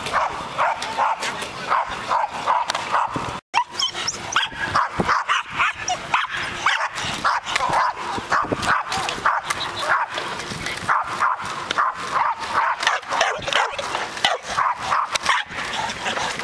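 A dog barking over and over in short, quick barks, about two or three a second, with a brief break about three and a half seconds in.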